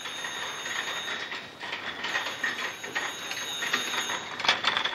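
Wheeled metal trolley rattling as it is pushed along a hard corridor floor, a steady clatter of small knocks with one sharper clack about four and a half seconds in.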